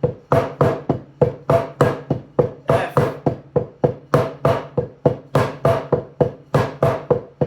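Taiko bachi (wooden drumsticks) striking in an even stream of strokes, about three a second, in an accent drill with some strokes played louder than the rest. Each stroke rings briefly. The calling-out of the pattern letters comes once, about three seconds in.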